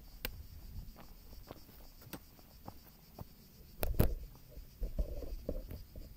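Handling noise from a handheld camera on a grip: faint scattered clicks and scratchy rubbing, with a louder knock about four seconds in as the camera is swung down.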